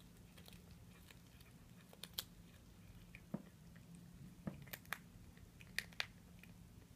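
Cat chewing a chicken wing, crunching on the bone: about eight sharp, irregular crunches, several coming in quick pairs.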